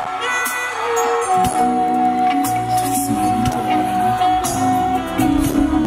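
Live band playing the opening of a pop-rock song: a long held note over shifting lower notes, with scattered percussion hits.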